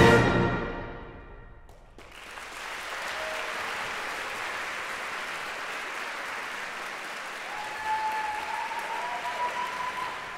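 A concert band's final chord rings away in the hall's reverberation. About two seconds in, the audience starts steady applause, and near the end a long held cheer rises over the clapping.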